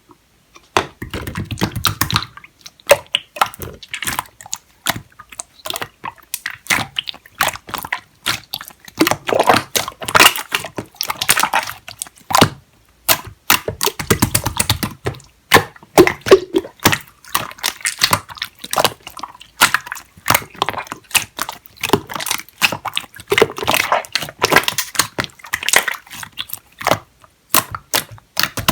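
Clear slime being squished and worked by hand. It makes a dense, irregular run of wet clicks, squelches and small pops.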